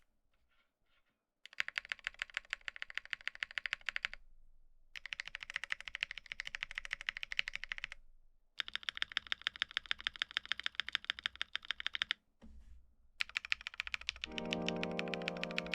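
Fast typing on a MonsGeek M1 mechanical keyboard fitted with Durock Black Lotus linear switches, in several runs of rapid keystrokes with short pauses between. Music comes in near the end.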